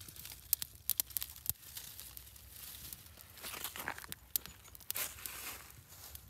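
Irregular sharp snaps and crackles with rustling, as a freshly lit, struggling campfire is fed small kindling.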